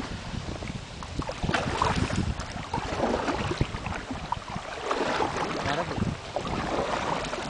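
Water splashing and sloshing around a small boat moving through a reservoir, in uneven swishing surges, with wind rumbling on the microphone.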